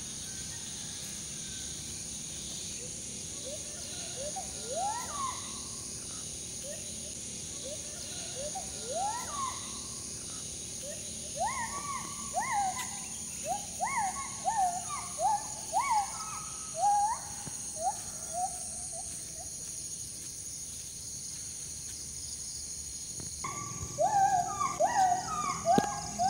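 Calls of a wild forest monkey: a series of rising whoops that start slow and spaced, then speed up into a fast run. After a short pause comes a second, louder run near the end. A steady high insect hiss runs underneath.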